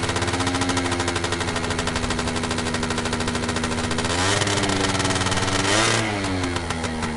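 Gilera Runner scooter engine running at a steady raised idle, then blipped up about four seconds in, held higher for a couple of seconds and dropping back to idle near the end.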